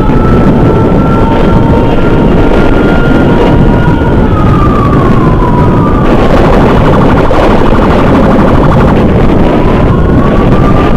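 Electronic siren wailing with a slow falling glide, switching about six seconds in to a rapid pulsing tone for a few seconds, then rising again. Heavy wind and engine noise from a moving motorcycle runs underneath.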